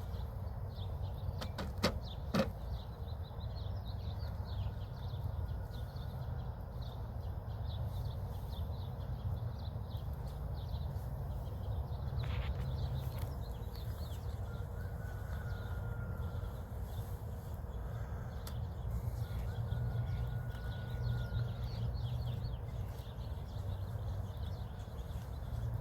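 Steady low hum of honeybees around the open hive, with birds chirping throughout and a few sharp clicks about two seconds in.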